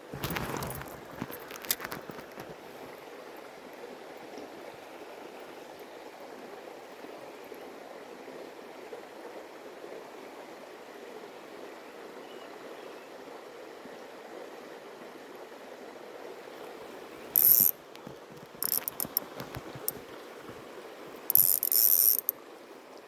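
Spinning fishing reel being worked, its gears and ratchet giving a mechanical whirring and clicking, over a steady rush of stream water. There are a few short, loud clattering bursts at the start and again near the end.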